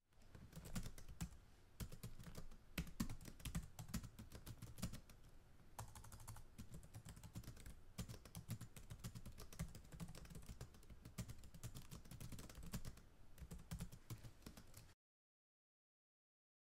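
Faint computer keyboard typing: a quick, irregular run of key clicks with soft low thuds that stops short a little before the end.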